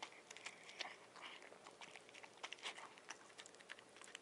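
Miniature dachshund licking and chewing the last bits out of its emptied food bowl: faint, irregular wet clicks of its mouth against the bowl.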